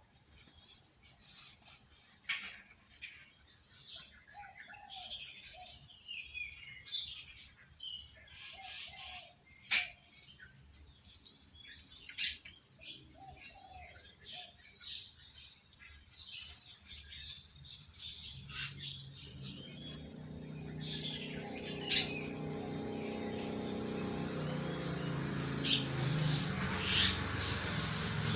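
Insects chirring in a steady, high-pitched chorus, with scattered short chirps and clicks; about two-thirds of the way in, a low steady hum joins.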